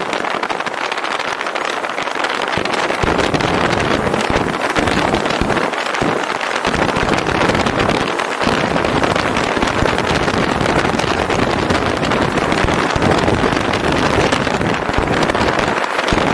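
Wind rushing over the microphone of a camera on a moving car, mixed with the car's road noise. Low, gusty buffeting of the microphone sets in about three seconds in and comes and goes.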